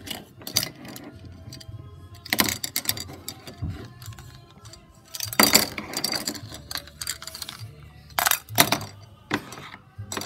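Toy kitchen utensils clattering: a plastic spatula knocking and scraping in a small toy frying pan, and a toy plate being handled and set down. The clatter comes as several sharp knocks spaced a few seconds apart.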